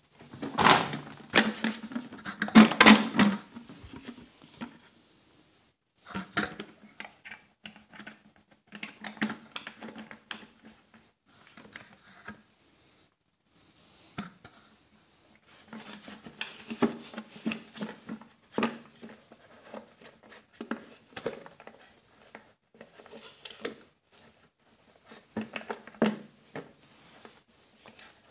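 Irregular clicks, taps and knocks of small hard parts being handled as screws are started by hand into a homemade blender's plexiglass plate, jar and melamine base. The knocks are loudest and thickest in the first few seconds.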